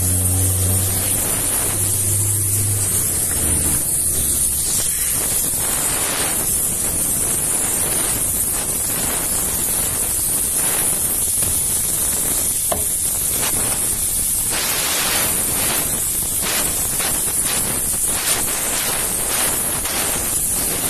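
Air hissing steadily out of punctured truck tyres, a loud high-pitched hiss, with scattered short knocks from the knife and hands at the wheels. A low hum sounds for the first few seconds and fades out about four seconds in.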